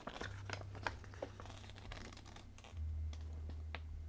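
Quiet handling of the kit's instructions and parts: scattered light clicks, taps and paper rustles, over a steady low hum that gets louder about three seconds in.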